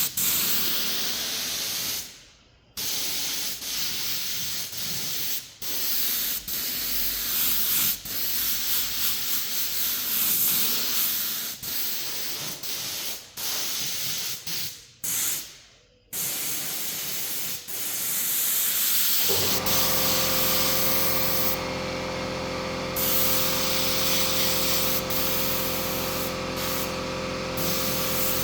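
A spray hissing in repeated bursts with short breaks, then from about two-thirds in a steady hum with a held tone takes over.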